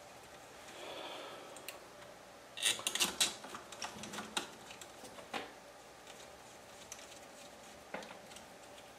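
Irregular light clicks and ticks of a small screwdriver working a screw through a 3D printer tool head's circuit board into its plastic fan. The clicks bunch together about three seconds in.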